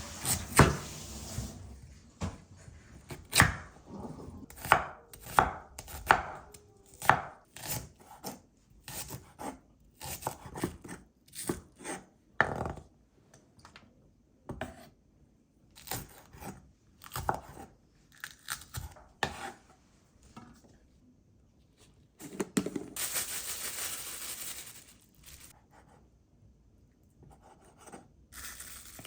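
Kitchen knife chopping on a cutting board in irregular strokes, roughly one or two a second, with pauses. About two-thirds through there is a few seconds of steady noise.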